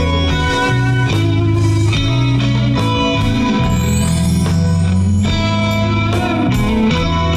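Instrumental blues ballad with a jazzy feel: a guitar plays the lead over bass and drums at a steady beat.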